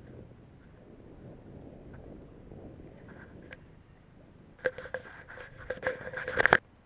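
A rapid run of sharp knocks and clatters on board a small boat, starting about two-thirds of the way in and ending abruptly, loudest at the end. A faint, even background hiss runs beneath it.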